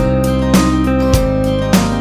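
Background music: strummed acoustic guitar with a steady beat, in a country style.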